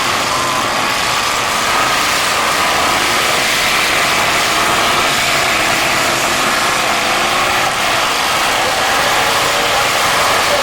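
Engines of several stock demolition derby cars running and revving together in a steady loud din.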